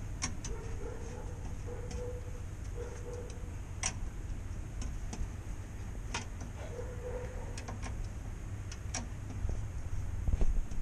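Scattered sharp metallic clicks of a hand wrench working at a car's bare front wheel hub with the wheel removed, over a steady low rumble.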